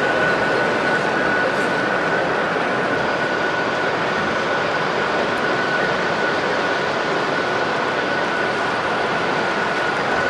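Running noise of an O-gauge model train on the layout, set in a steady background din with a thin, steady high whine throughout.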